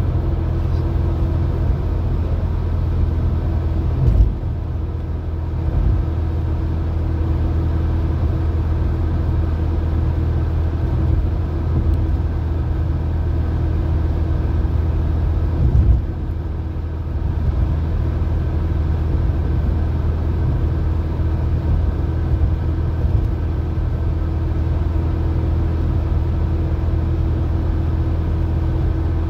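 Alfa Romeo 75 cruising at steady speed, heard from inside the cabin: a steady engine drone mixed with road and wind noise. There is a brief thump a few seconds in and another about halfway through.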